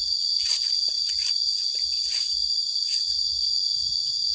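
Steady, shrill chorus of forest insects droning without a break. Over it come about four soft rustles of footsteps brushing through leafy undergrowth in the first three seconds.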